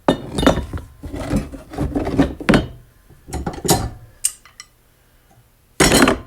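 Heat-loosened, partly seized mower-deck spindle shaft being worked back and forth in its housing: irregular metal-on-metal scraping and grinding strokes for about four seconds, then one short loud scrape or clatter near the end.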